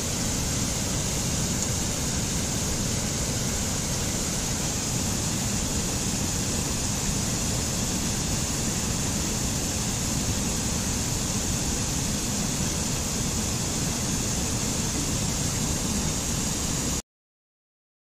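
Steady rushing of a mountain stream cascading over rocks, even and unbroken, cutting off abruptly about a second before the end.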